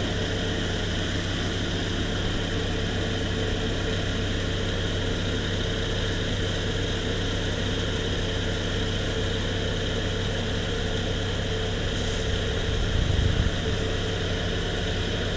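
1997 Saturn SL2's four-cylinder engine idling steadily with the AC compressor running. There are a couple of faint clicks and a short louder low bump near the end.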